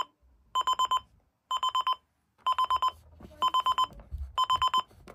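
Roberts CR9971 clock radio's alarm buzzer going off: a high electronic beep in quick groups of four pulses, about one group a second.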